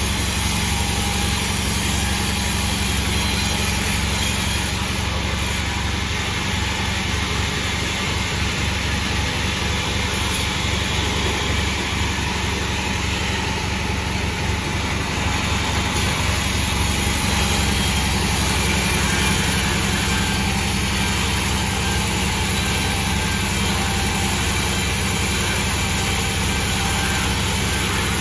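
Sawmill running steadily: a constant engine drone with an even high hiss over it, getting a little louder a little past halfway through.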